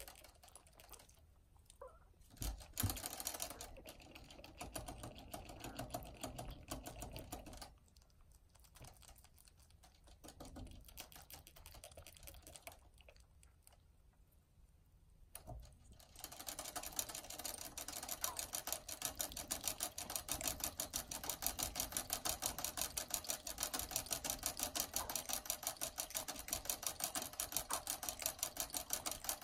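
Rabbits drinking from the metal sipper tube of a hanging water bottle: rapid clicking as they lick the spout, in scattered runs at first and steady and even from about halfway through.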